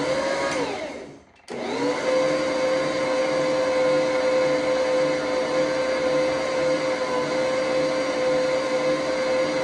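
Electric stand mixer's motor mixing cookie dough. A short run that winds down about a second in, then it starts again and runs at one steady pitch.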